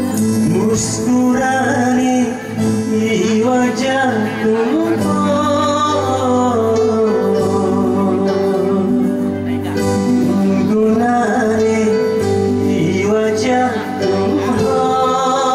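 A man singing through a microphone and PA system, accompanied by an electronic keyboard playing steady chords.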